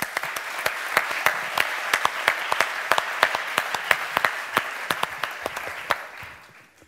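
Audience applause, a dense patter of hand claps with sharp, close claps standing out, dying away near the end.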